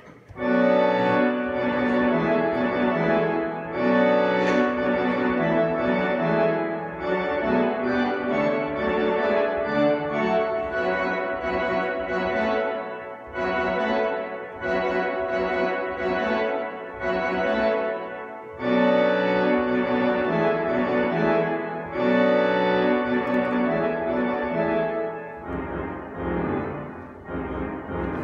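Virtual pipe organ voiced as a replica of the 1902 two-manual Cavaillé-Coll organ, played on its reed stops: loud, full chords in phrases broken by brief pauses, thinning to a quieter passage near the end.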